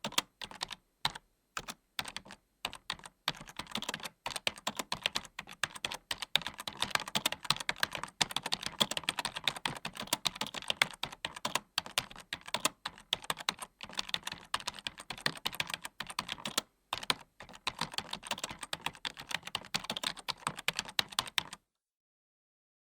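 Typing on a computer keyboard: a few scattered keystrokes at first, then fast continuous clicking of keys with brief pauses, stopping suddenly near the end.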